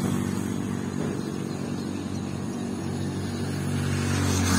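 Motor vehicle engine running steadily, heard from on board while moving: a low hum that grows a little louder near the end.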